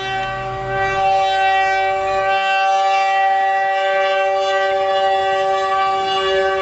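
Locomotive air horn held in one long, steady chord of several notes, sounding for a level crossing. A low rumble under it stops about two seconds in.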